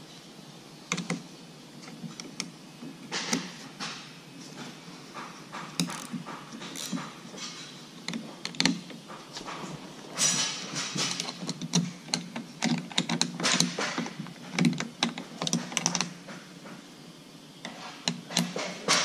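Hand wrenches working steel door-hinge bolts on a tractor cab: irregular metallic clicks and clinks, with quicker runs of clicking partway through.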